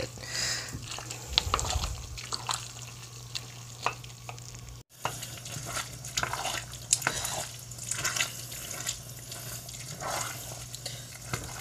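Wooden spoon stirring thick, creamy macaroni in an enamel pot: irregular soft scrapes and squelches, with the spoon knocking against the pot, over a steady low hum. The sound drops out briefly about five seconds in.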